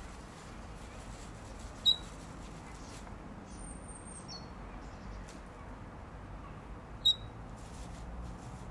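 Two short, sharp bird chirps about five seconds apart, with a few faint high whistles between them, over a steady low background noise.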